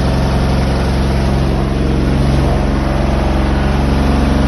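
Electrolux washing machine running with its transit bolts still in, shaking and vibrating: a loud, steady drone with a fast pulsing rattle. The shipping bolts lock the drum to the cabinet, so the drum's motion goes straight into the machine's body and the floor.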